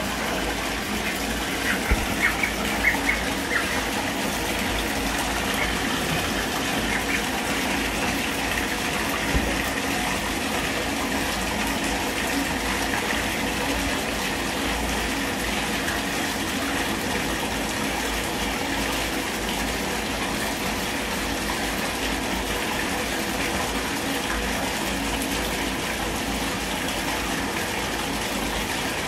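Steady rush of a tap running into a bathtub, with a few short sharp sounds over it about two to three seconds in.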